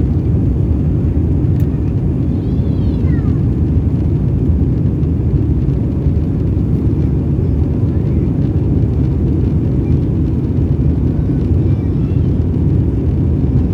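Steady low roar of an Airbus A320's jet engines and rushing air, heard inside the passenger cabin during the climb after takeoff.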